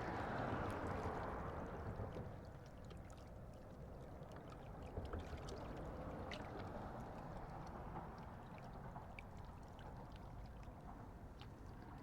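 Faint, steady wash of lake water lapping at the shore, a little louder in the first two seconds, with a few light ticks.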